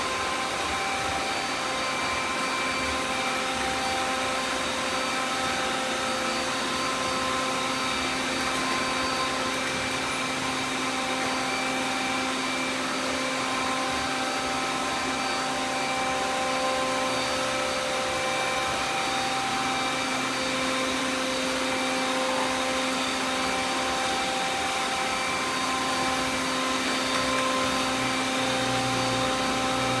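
Several robot vacuums running at once: a steady whir with a number of held whining motor tones layered over one another.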